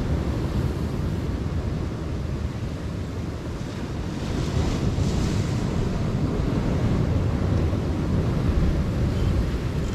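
Ocean waves breaking and washing against a rocky shoreline, with wind rumbling on the microphone; a louder surge of surf wash comes about four seconds in.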